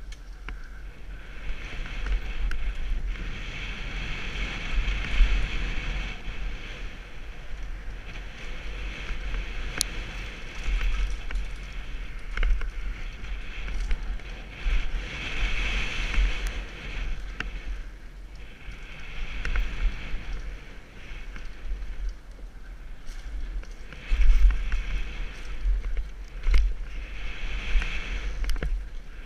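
Downhill mountain bike ridden fast on a dry dirt trail: wind buffeting the helmet-mounted camera's microphone and tyres rolling over dirt, in a rushing noise that swells and eases every few seconds, with a few sharp clacks from the bike over bumps.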